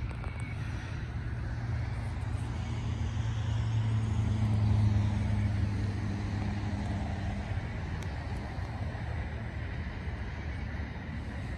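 Road traffic from a nearby highway: a steady low rumble, swelling about halfway through as one heavier vehicle passes, then easing off.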